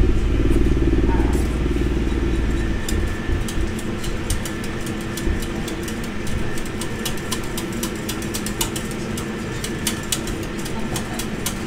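A wire whisk clicking and scraping against a metal saucepan as a sauce is whisked, in many quick irregular ticks. Under it runs a steady low mechanical hum, and for about the first three seconds a heavy low rumble.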